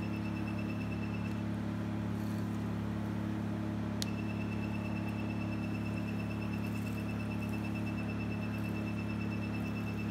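Forimi FMD-II 808 nm diode laser hair removal machine running with a steady low hum, and a rapid string of high beeps that keeps pace with the laser firing at its set pulse rate. The beeping stops about a second in and starts again with a click about four seconds in.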